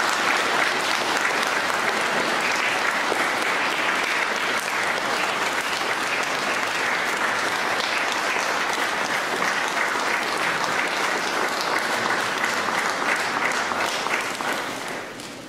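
Congregation applauding, a steady crowd of clapping hands that dies away near the end.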